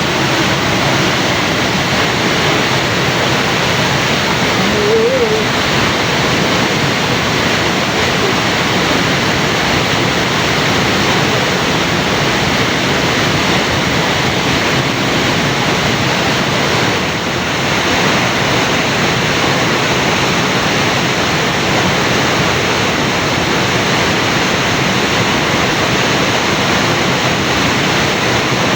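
Koromosho waterfall's falling water, a steady, loud rush.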